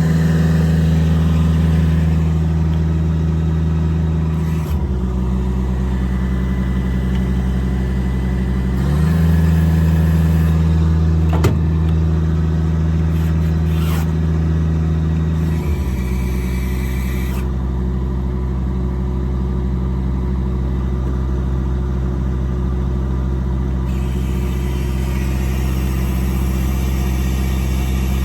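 Diesel engine running at a steady speed that steps up twice, for about five and about seven seconds, and settles back to a lower speed each time. A single sharp click about eleven and a half seconds in.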